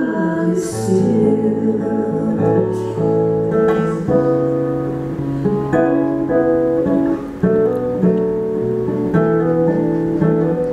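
Acoustic guitar played live, chords ringing over a bass note that moves every second or so.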